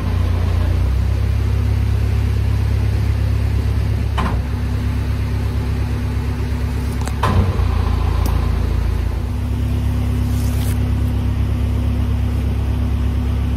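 Narrowboat diesel engine running steadily with a low hum, with two sharp knocks about four and seven seconds in.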